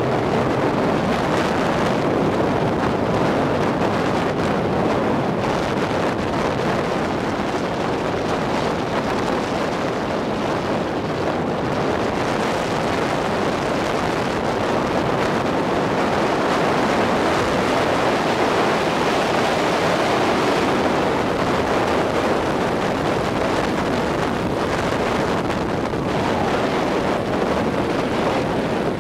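Steady rush of wind and road noise on the microphone of a camera travelling in a moving vehicle. The level stays even throughout, with no separate engine note standing out.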